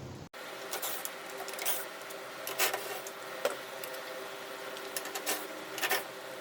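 Short clicks and rattles from work on a generator's electrical panel, about six in a few seconds, over the steady hum of an electric fan.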